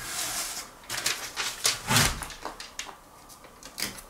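Foil vapour-barrier tape being pulled off the roll with a tearing hiss and worked into place, with a run of short knocks and scrapes; the loudest knock comes about two seconds in.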